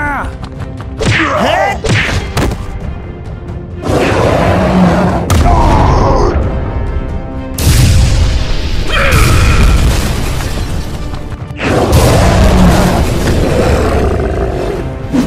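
Cartoon battle sound effects over background music: energy-beam blasts and explosions booming in three long, loud stretches, after a few short hits and cries in the first seconds.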